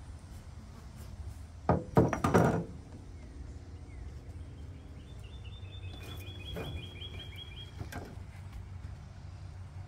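A paddle knocking against the boat several times in quick succession, about two seconds in, as it is set down across the deck.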